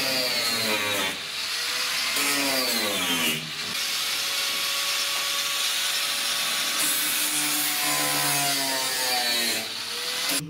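Angle grinder biting into the rusted sheet metal around a VAZ 2109's rear shock tower. Its motor whine drops in pitch about two seconds in as the disc loads up, holds steady, and rises again near the end as it comes off the metal, stopping just after.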